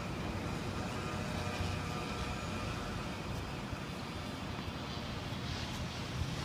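Steady low background rumble of distant motor noise, with a faint steady whine higher up.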